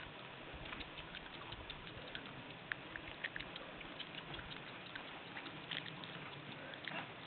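Horse trotting on grass some distance off: faint, irregular light hoof clicks over a steady outdoor hiss.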